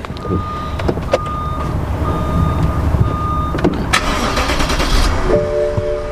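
BMW N63 twin-turbo V8 being started and running after an intake-valve carbon-cleaner soak, with a car chime beeping four times early on. A brief hiss comes about four seconds in, and a steady warning tone sounds near the end.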